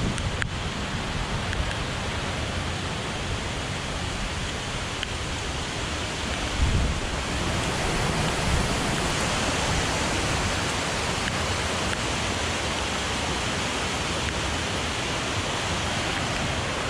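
Steady rushing of water in a beck near a waterfall, an even hiss, with a brief low rumble about seven seconds in.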